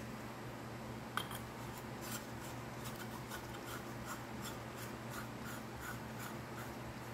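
LED light bulb being screwed into a ceramic lamp socket: a click about a second in, then a run of light ticks and scrapes from the threads, about three a second, over a steady low hum.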